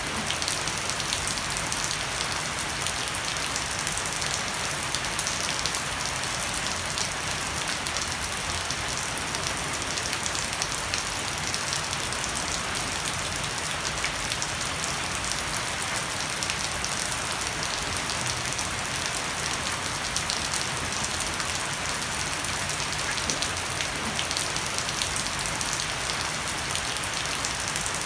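Heavy, steady rain pattering on a wet wooden deck and leafy shrubs, with water streaming and dripping off the edge of a thatched roof. Dense fine drop ticks, with no let-up.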